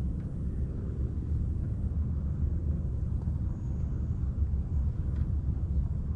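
Wind buffeting the camera microphone: a steady, irregular low rumble.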